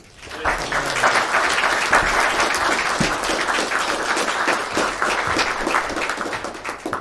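An audience applauding, a dense, steady clatter of many hands clapping that swells in about half a second in and dies away near the end.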